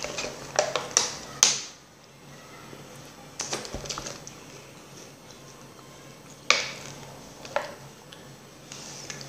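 Plastic water bottle being handled: scattered sharp clicks and crackles, three close together in the first second and a half, a few more about three and a half seconds in, and single ones around six and a half and seven and a half seconds.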